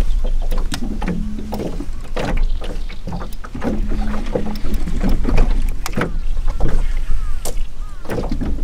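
Sounds of a small fishing boat on the water: a steady low rumble with a hum that starts and stops several times, and scattered knocks and clicks on the hull.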